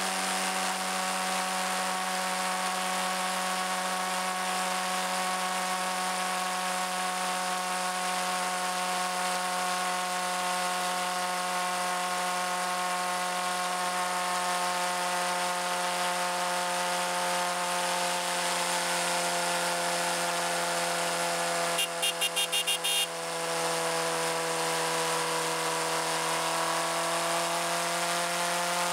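Suzuki GSX-R600 inline-four engine running at a steady cruising speed, a high, even whine heard from the bike itself. About 22 seconds in, a quick rattle of about six short clicks comes with a brief drop in engine sound, after which the pitch sags slowly and then climbs again near the end.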